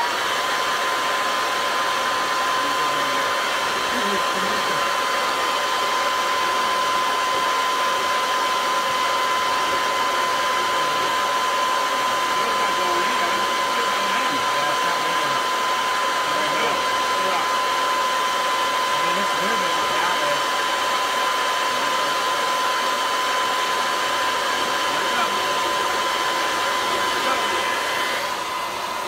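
Electric leaf blower running steadily, blowing into the intake of a JetCat P180 model jet turbine to spin it up for an air-assisted start. It is a loud rush of air with a steady whine. Near the end it fades away, with the whine falling in pitch.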